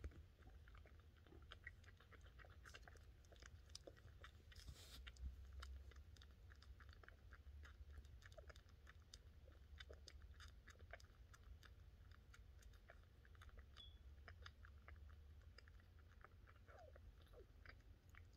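Faint, irregular clicking of a very young kitten suckling milk from a nursing bottle, with a brief soft rush of noise about five seconds in, over a low steady hum.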